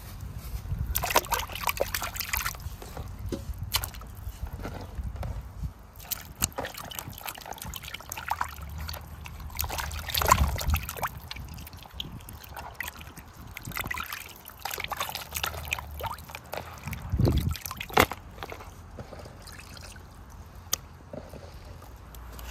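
Water sloshing and trickling, broken by many irregular sharp splashes and knocks, as in food preparation with water in a basin.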